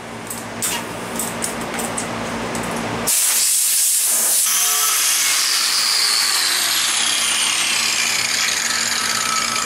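Scattered handling clicks, then about three seconds in an angle grinder starts cutting into a steel moped pedal crank clamped in a vise: a loud, steady rasp of the disc on hard steel, with a faint whine that slowly falls under the load.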